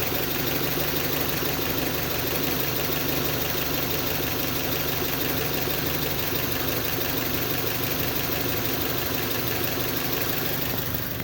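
Kia Sportage engine idling steadily, an even running sound with no change in speed.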